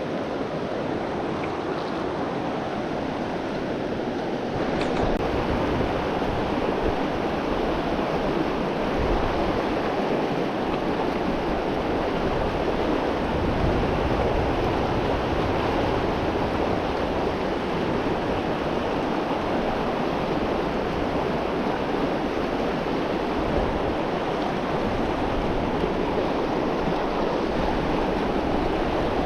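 Steady rush of a flowing river, a little louder from about five seconds in.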